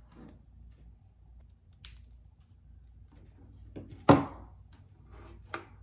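Handling noises: a few light clicks and taps, and one sharp knock about four seconds in.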